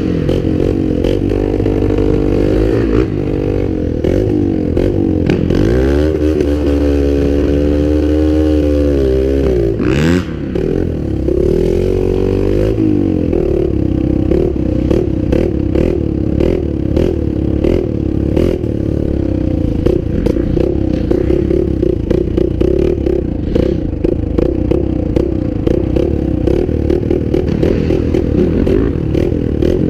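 Small off-road vehicle engine running under way, its pitch rising and falling with throttle and gear changes, with rattling from the machine. The engine holds a steady pitch for a few seconds, dips briefly about ten seconds in, then runs choppy with quick changes in revs.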